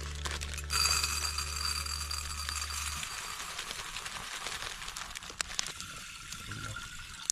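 Water pouring and splashing over arhar dal (pigeon-pea lentils) as they are rinsed, a steady hiss with a few small clinks. Background music plays under it for the first three seconds, then stops.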